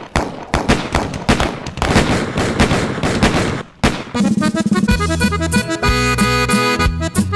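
A rapid burst of gunfire sound effects, dozens of sharp shots in quick succession. About four seconds in, a corrido intro begins, with an accordion melody over a steady, rhythmic bass line.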